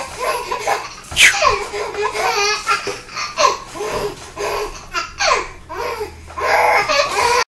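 A baby laughing hard in repeated bursts of squealing, giggling laughter, some squeals sliding down in pitch. It cuts off suddenly near the end.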